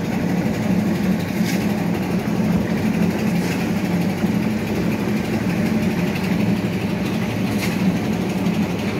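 An engine running steadily at an even pitch, with three faint knocks over it.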